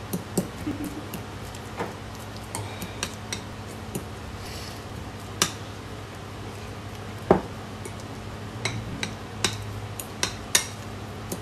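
A metal utensil clinking and scraping against a ceramic bowl while mashing a banana. It makes irregular sharp clicks, the loudest about seven seconds in.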